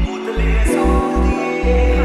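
Background music: the instrumental intro of a Punjabi pop song, held notes over a heavy repeating bass beat.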